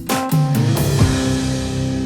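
Background music: rock-style guitar and drums. A last chord lands about a second in and rings out, fading slowly.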